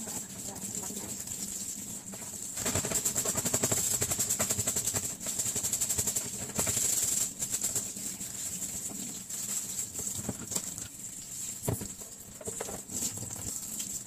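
Tap water running and splashing onto a plastic-mesh air-conditioner filter as it is rinsed and rubbed by hand. The spattering is louder and crackly from about three seconds in until about seven seconds in, with a few knocks of the filter later.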